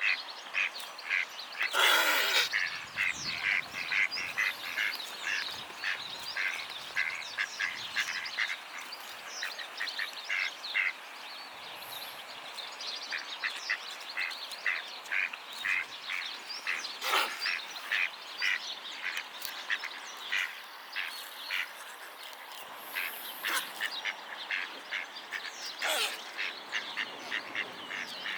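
Swan coughing: three harsh, sudden coughs, well spaced, a sign of an illness she recovers from. Under them runs a chatter of short, rapid waterfowl calls, about two to three a second.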